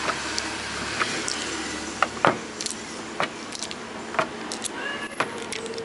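Irregular light plastic clicks and taps as a hand grips and works the rotary knobs of a Soundcraft SX1202FX mixing desk, over a steady background hiss.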